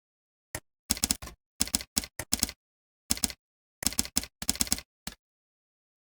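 Typing on a computer keyboard: short runs of rapid keystrokes separated by pauses of complete silence.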